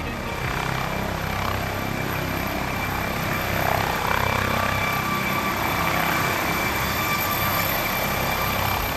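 Helicopter running steadily, with the fast chop of its rotor blades under engine noise and a faint steady whine.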